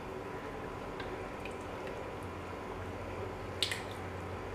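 Oily masala bubbling in a pan on the stove, with small wet pops. About three and a half seconds in there is one sharp clack as a spoon adds more ground daal and meat to the pan.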